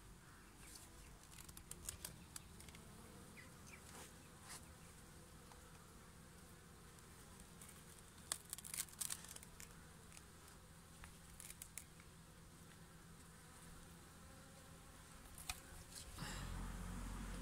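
Honeybees buzzing faintly around a hive entrance, with scattered light clicks and knocks as the hive boxes are handled, the sharpest cluster about halfway through. A louder low rumble comes in near the end.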